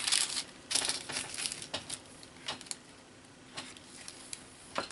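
Wax paper crinkling and rustling as a hand smooths it over a wet painted page and peels it off: a few rustling bursts in the first second, then scattered light crackles.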